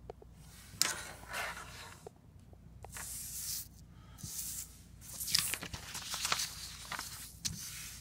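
Sheets of paper rustling and sliding over a wooden desk in several short bursts, with a few light knocks.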